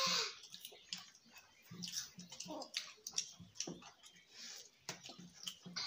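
Eating sounds at the table: irregular chewing, wet mouth clicks and smacks, opening with a short breathy noise.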